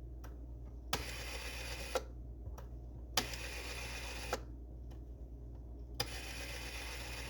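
Rotary telephone's bell ringing in three bursts of about a second each as an incoming call reaches it, showing the newly connected line cord works. A low steady hum runs underneath.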